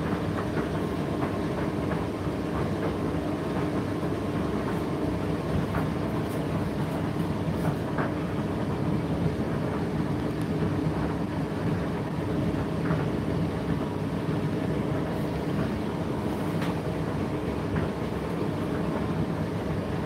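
Indesit IDC8T3 condenser tumble dryer running mid-cycle: a steady motor and fan hum as the drum turns, with a few faint scattered clicks.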